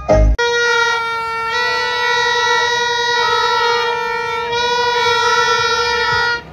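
A horn held in one long, steady blast at a single pitch, starting just after a brief low thud and cutting off shortly before the end.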